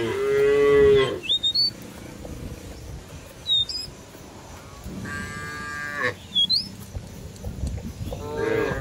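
Cattle mooing: a long moo that ends about a second in, another about five seconds in, and a third that starts near the end. Short, high, rising chirps come in the gaps between them.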